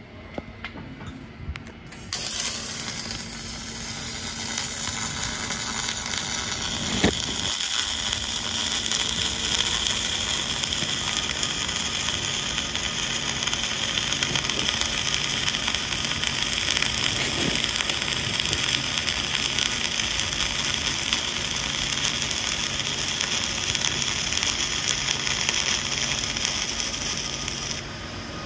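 Gas-shielded (dual shield) flux-core arc welding as a cap pass is run: the arc strikes about two seconds in and gives a steady crackling hiss, with one louder pop about seven seconds in, until it stops just before the end.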